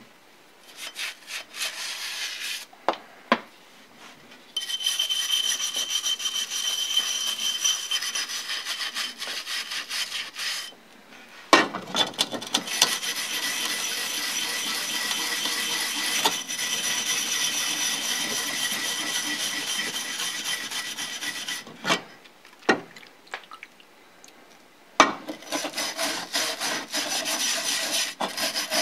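Hand brush scrubbing a small aluminum vernier ring from a Bridgeport rotary table, wet with degreaser. The scratchy back-and-forth strokes come in long runs, stopping briefly three times.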